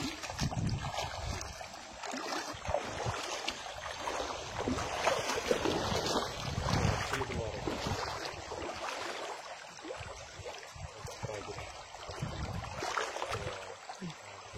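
River water splashing and sloshing irregularly, with small knocks and rustles of handling mixed in.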